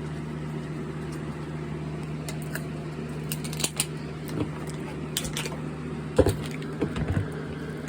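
Electric box fan running with a steady low hum, with scattered light clicks and rustles over it and a louder knock near the end.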